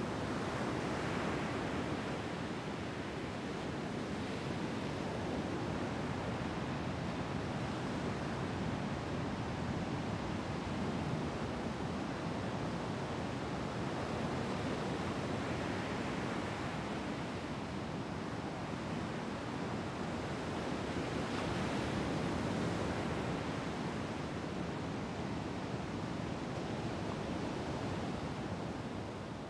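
Ocean surf washing onto a beach: a steady rush of breaking waves that swells and eases slowly, fading out near the end.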